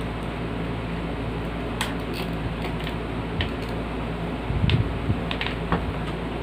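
Scattered light clicks and taps of box fan parts being handled during cleaning, the loudest cluster a little past the middle, over a steady low hum.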